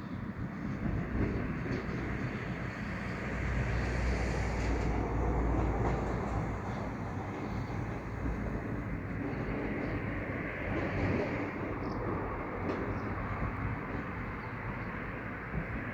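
A train running on the track: steady rail noise that swells in the low end about four to six seconds in, with a few faint clicks later.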